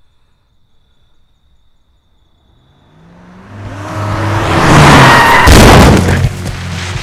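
A car rushing closer: engine and tyre noise swell from quiet to very loud over about three seconds, the engine note rising, then break off suddenly near the end as music comes in.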